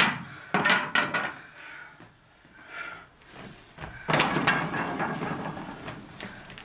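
Sharp knocks of a wooden staff striking a wooden floor, a few in quick succession, followed about four seconds in by a longer run of thuds and scuffing from sneakers on the floorboards.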